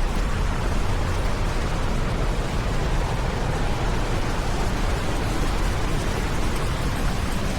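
Waterfall swollen with runoff after hard rain, a steady, loud rush of falling water with a deep low rumble underneath.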